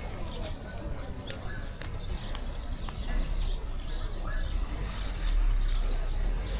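Birds chirping: many short, high calls rising and falling in quick succession over a low steady rumble.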